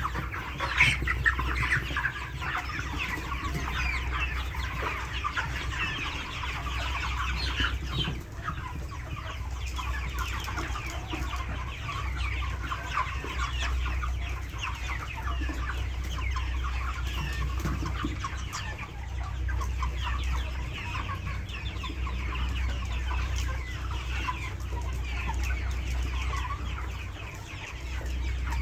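Large flock of 42-day-old broiler chickens calling together: a dense, continuous chatter of many overlapping short clucks and peeps.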